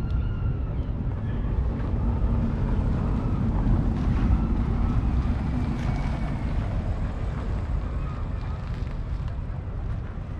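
An engine running as a low rumble that swells a few seconds in and eases off again, with wind buffeting the microphone.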